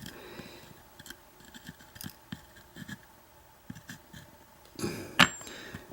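Faint small clicks and ticks of small metal lock pins and parts from a gutted American 1100 padlock being handled and sorted, with a louder scrape and a sharp click about five seconds in.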